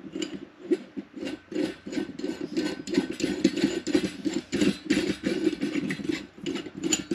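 Stainless-steel extension handle being screwed by hand into the lever arm of a Sopito French fry cutter, finger-tight: a rapid, uneven run of metal scraping and knocking, several strokes a second.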